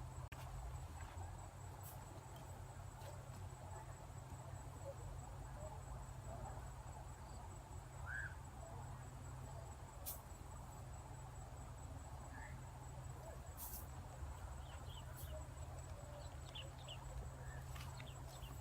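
Faint outdoor ambience: a steady high chirring of insects, with a low rumble underneath and a few scattered faint clicks.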